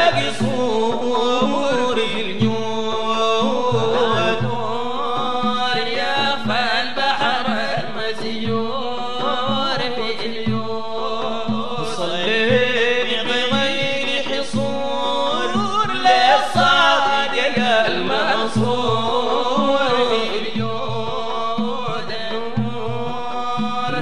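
Sudanese madeeh, a Sufi praise song for the Prophet: voices chanting over a regular low drum beat.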